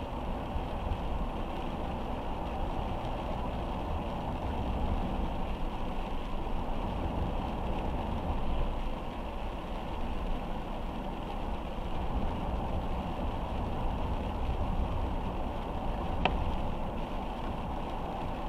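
Car driving on a wet road, heard from inside the cabin: a steady low rumble of road and tyre noise with a hiss from the rain. There is a single sharp click about sixteen seconds in.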